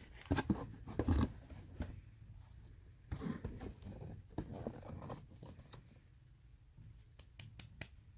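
Handling noises from a pair of new shoes being picked up and moved: irregular scrapes, rustles and light knocks in two short clusters, then a few faint ticks near the end.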